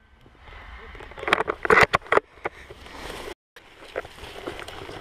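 A burst of loud, irregular noise with a person's voice in it, between about one and two seconds in, then a brief total dropout of sound where the footage is cut.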